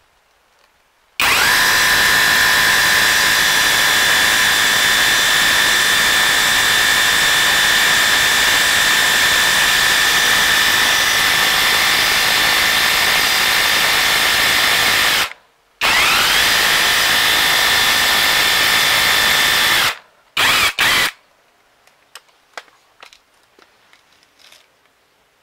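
Cordless rotary hammer drilling into concrete with a masonry bit: it spins up with a rising whine and runs loud and steady for about fourteen seconds. It stops briefly, spins up and runs again for about four seconds, then gives two short bursts before stopping.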